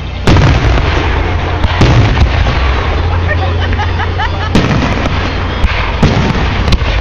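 Aerial fireworks bursting: a run of sharp booms, about seven in a few seconds, the first and loudest right at the start, with crackling between them.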